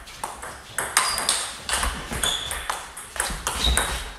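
Table tennis ball clicking in a fast rally, struck by the paddles and bouncing on the table, about three sharp clicks a second.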